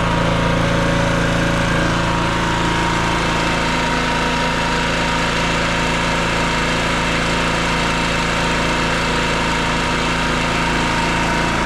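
Portable generator's small engine running steadily at an even speed after its fuel valve and carburetor were replaced.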